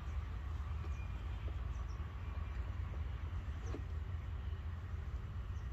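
Steady low outdoor rumble, with a few faint high chirps and one brief sharp tick about three and a half seconds in.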